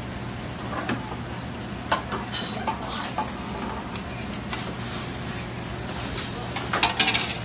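Pasta and sauce being stirred in a sauté pan on a gas range in a restaurant kitchen, over a steady low hum. A few light clinks sound in the first half, and a short burst of clattering comes near the end.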